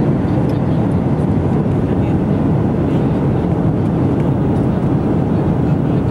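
Jet airliner cabin noise in cruise: the steady low rush of the engines and airflow heard from a window seat.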